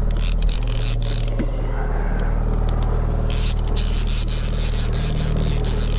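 Boat's outboard motor running steadily at trolling speed, a low even hum with a hiss over it.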